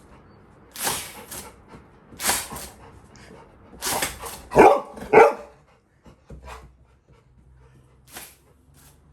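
Labrador retriever puppy barking in short bursts, startled by a toy's noise; the two loudest barks come close together about halfway through.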